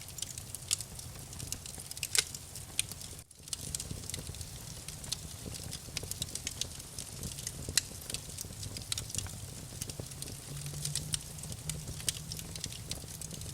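Wood campfire burning, with dense, irregular sharp crackles and pops over a low steady rumble. The sound cuts out for an instant about three seconds in.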